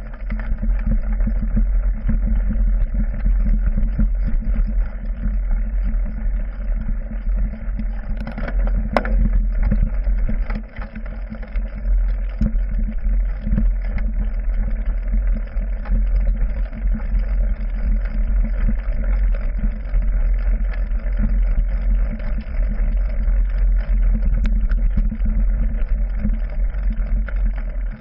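Mountain bike rolling over a rough dirt trail, heard from a handlebar-mounted GoPro Hero 3: a steady low rumble of tyres and frame vibration, with scattered clicks and rattles and one sharper knock about nine seconds in.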